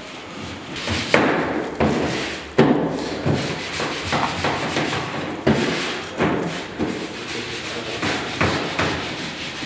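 Irregular thumps and knocks, roughly one a second at uneven spacing, each with an echoing tail, from hand work with dough and filling at a wooden workbench while kosa samsa are being made.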